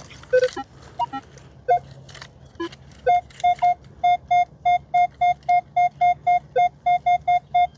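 Metal detector giving short tones of differing pitch, then, from about three seconds in, a quick, even run of same-pitched beeps, about four a second: a steady target signal from a buried metal object.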